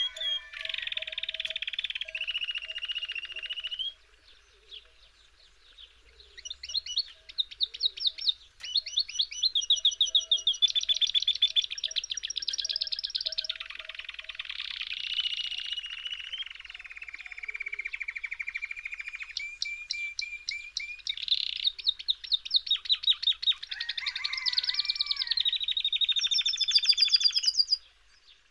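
Small songbird singing in rapid, high-pitched trills and chirps. It breaks off briefly about four seconds in, resumes, and cuts off abruptly near the end.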